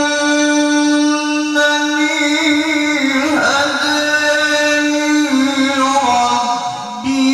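Quran recitation (tilawah) by a qori in the drawn-out melodic style, holding long notes on one pitch and ornamenting them with small turns. The phrase tails off near the end and a new held note begins.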